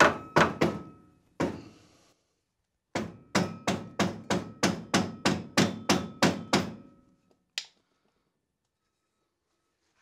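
Mallet blows on a Porsche 911's rusty rear brake rotor to knock it loose from the hub: a few separate strikes, then a fast run of about a dozen, each with a faint metallic ring from the rotor.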